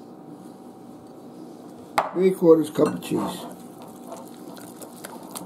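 Wire whisk beating eggs and grated cheese in a glass bowl, the whisk clicking and tapping against the glass from about two seconds in, starting with one sharp click. A short wordless murmur of a man's voice comes with the first strokes, over a steady background hum.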